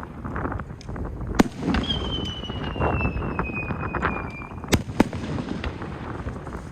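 Fireworks going off: a sharp bang, then a whistle sliding slowly down in pitch for over two seconds, then two more sharp bangs in quick succession.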